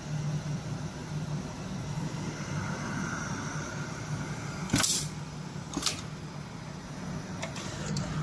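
Automatic pocket setter sewing machine running with a steady hum, with two short, sharp bursts about a second apart midway and a few lighter clicks near the end.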